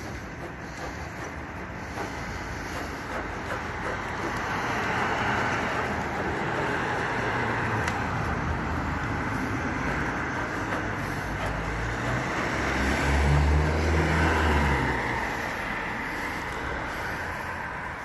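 Road traffic going by. A vehicle's engine and tyre noise grows louder from about four seconds in, with a low engine rumble loudest around thirteen to fifteen seconds, then fades away.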